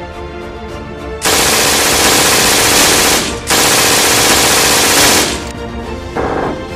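Machine-gun fire in two long bursts of about two seconds each, with a brief break between them, over orchestral music.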